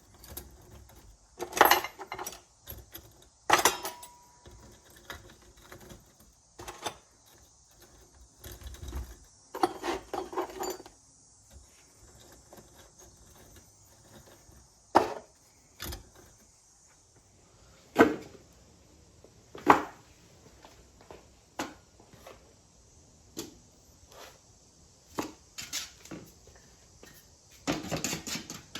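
Irregular knocks, clanks and clatters of casting gear and materials being handled and set down while the setup is loaded and packed, over a faint steady hiss that fades out a little past halfway.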